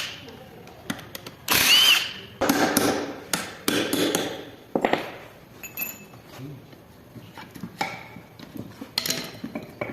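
Hand tools knocking and scraping on the metal parts of a Land Rover Defender transfer case being taken apart, in a run of irregular knocks and scrapes that is busiest in the first half.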